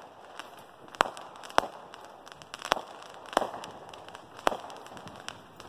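Fireworks going off: about seven sharp bangs at uneven intervals.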